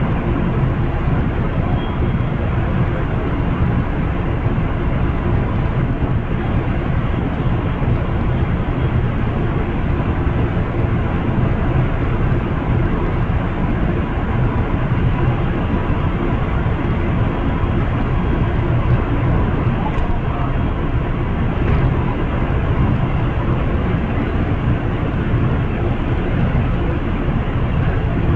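Steady low drone of a stopped Amtrak Superliner passenger train, its diesel locomotives idling.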